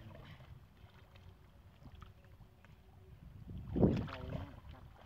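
Muddy water sloshing and splashing as a long-handled hoe is dragged through a shallow flooded ditch, with wind on the microphone. About four seconds in there is a sudden louder splash, and a brief voice follows it.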